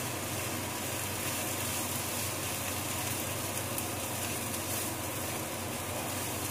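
Rice frying in a skillet on a gas stove, a steady sizzle as it is stirred, with a low steady hum underneath.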